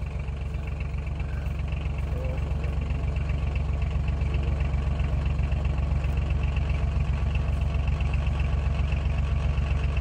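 A vehicle engine running steadily at low speed: a deep, even drone with a fast regular pulse.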